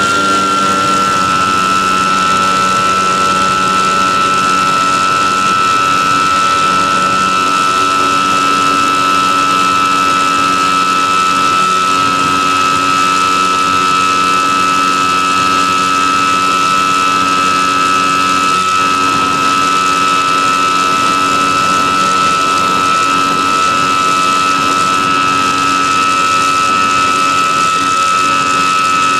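E-flite Apprentice S 15e's electric motor and propeller in flight, recorded on board: a loud, steady whine that dips slightly in pitch about a second in, then holds level.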